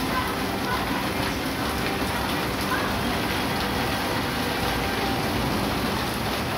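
Heavy rain pouring down on a street, a steady hiss.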